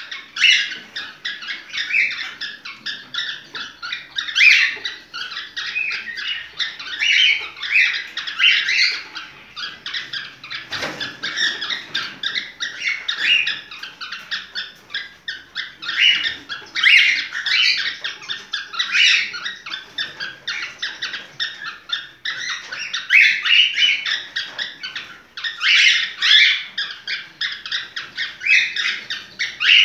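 Small birds chirping and chattering in a continuous stream of quick, high notes.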